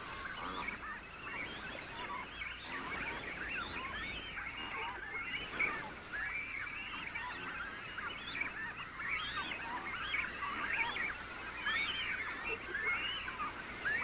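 Nesting colony of imperial cormorants calling: many short calls overlapping in a dense, continuous chorus as the crowded birds squabble over their nests.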